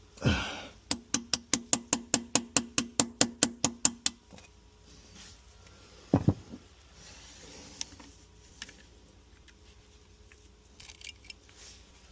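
Power drill working the broken spark plug's threaded shell out of a Mercruiser 5.0 V8's cylinder head: fast regular clicking, about six a second, over a steady hum for about three seconds. This is followed by a single short, loud sound about six seconds in and then faint scattered ticks.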